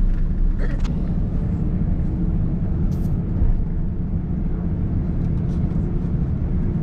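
Cabin noise of an Airbus A350-900 taxiing: a steady low rumble from the idling engines and the wheels rolling on the taxiway.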